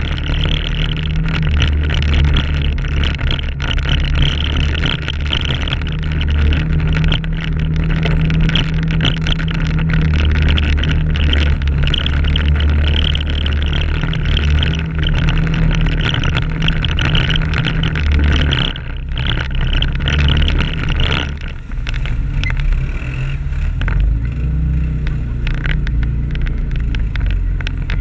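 Can-Am ATV engine running under throttle as the machine is ridden along a rough trail. The engine eases off briefly twice about two-thirds of the way through, then pulls again.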